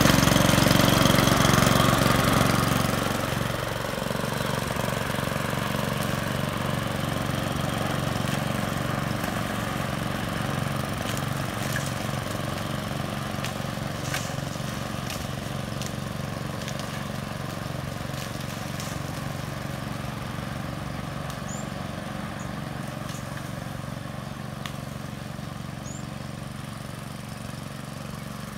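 Bison walk-behind lawn mower's petrol engine running steadily. It is loud at first, drops about three seconds in, then fades slowly as the mower is pushed away.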